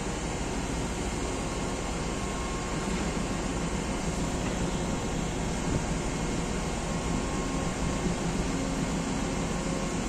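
Steady hum and hiss of a ship's machinery and ventilation fans running, with no breaks or distinct events.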